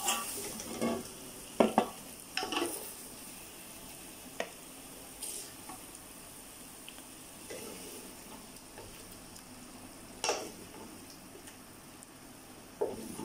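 Wooden spatula scraping and knocking against a steel pot and plate as thick prawn masala is scooped out. The scrapes and knocks come thick in the first three seconds, the loudest about one and a half seconds in, then only now and then.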